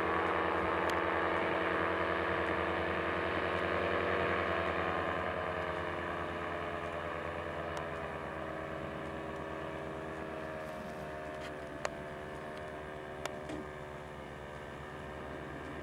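Paramotor engine and propeller of a powered paraglider droning overhead, fading and dropping slightly in pitch as it flies away. Two brief clicks near the end.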